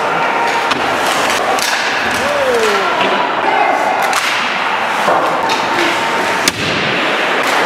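Ice hockey play heard from behind the rink glass: sticks, skates and puck knocking and scraping, with thuds against the boards and glass and players or fans shouting. One sharp crack stands out about six and a half seconds in.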